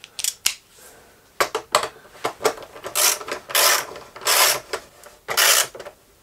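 Ratcheting screwdriver driving in a body-panel screw: the ratchet clicks in a string of short bursts, stroke after stroke.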